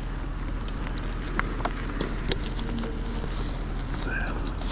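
Steady low outdoor rumble with scattered light clicks and rustles.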